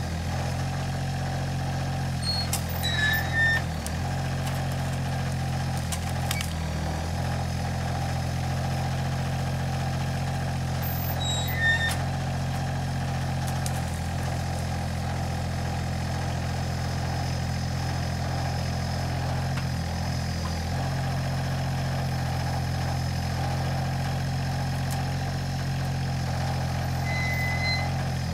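Alstor 834 forwarder's three-cylinder diesel running steadily while its hydraulic crane works, dipping slightly under load now and then. A few brief high squeaks sound over it.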